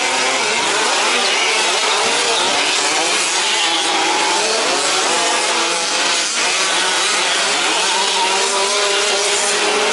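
Several 1/5-scale petrol RC trucks' small two-stroke engines buzzing together, their pitches rising and falling as they rev and back off.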